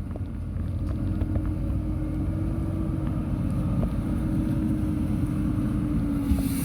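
Heavy diesel engine of earthmoving equipment running steadily with a low drone, its pitch sagging slightly near the end, with a few faint clicks and knocks. A hiss comes in about six seconds in.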